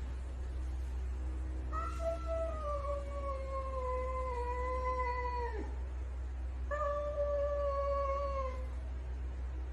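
A domestic cat yowling: two long, drawn-out calls, the first about four seconds long and slowly falling in pitch, the second shorter and steady, over a steady low hum.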